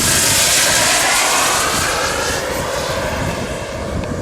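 Twin model jet turbines on a large radio-controlled jet making a fast pass: a loud rushing whine, loudest in the first second, that eases off as the pitch slides down while the plane goes by.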